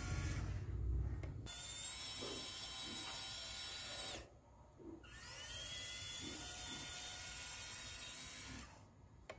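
Small electric motor running at high speed with a steady whine. It stops about four seconds in, starts again a second later, spins up to speed and runs until it cuts off near the end.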